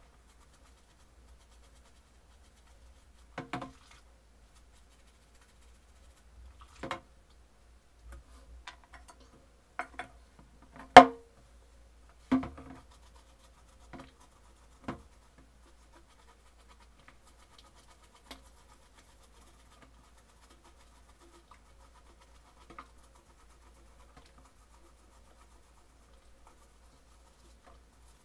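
Metal parts of an old Venusberg breast drill, its frame and gear wheels, handled and scrubbed with a bristle brush in a plastic tub of soapy water. Scattered short knocks and clinks as the metal meets the tub and the other parts, mostly in the first half, the loudest about eleven seconds in, with quiet scrubbing between.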